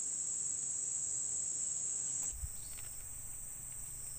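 Steady high-pitched insect chorus droning without a break, with a short knock a little over two seconds in.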